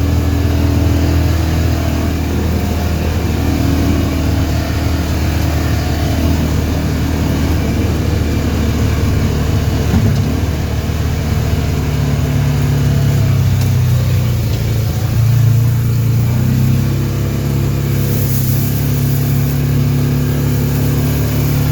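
Side-by-side UTV engine running while driving, its pitch shifting with the throttle and rising for a few seconds about midway before settling.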